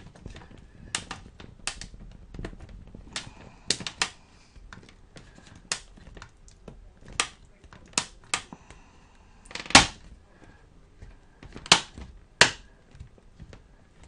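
Plastic snap clips of a netbook's bottom cover clicking into place as fingers press along its side: about a dozen sharp clicks at irregular intervals, the loudest about two-thirds of the way through.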